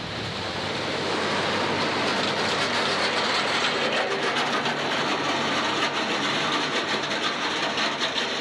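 A tracked snowcat (snow groomer) passing close by. Its tracks make a loud, dense clatter that swells about a second in and then holds steady.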